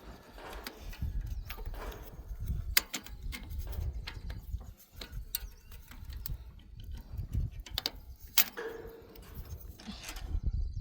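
Hand tools clicking and knocking on metal machine parts at irregular intervals, with a sharp knock about three seconds in and another near eight and a half seconds, over a low rumble.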